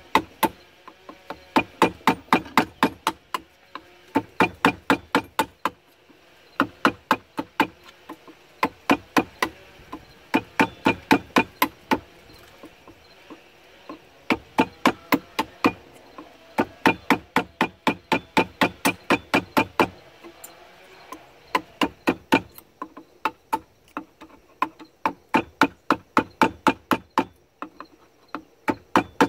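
Hammer striking a wood chisel that pares the end of a wooden axe handle, in runs of sharp taps about four a second with short pauses between runs.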